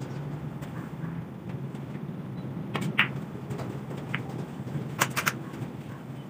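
Snooker break-off: sharp clicks of cue and balls about three seconds in as the cue ball strikes the pack of reds, then a few more quick ball-on-ball clicks around five seconds in. A steady low hum runs underneath.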